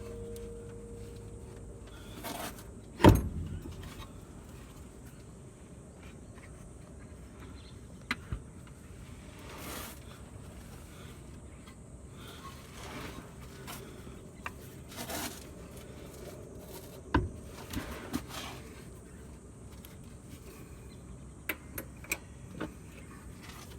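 Scattered knocks, clicks and short scraping swishes of hand work on a car, tools and parts being handled. One sharp knock about three seconds in is the loudest.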